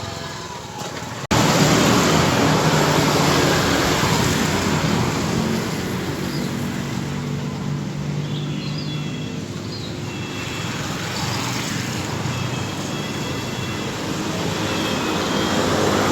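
Street traffic: steady road noise with the low hum of vehicle engines passing, and a few faint high chirps.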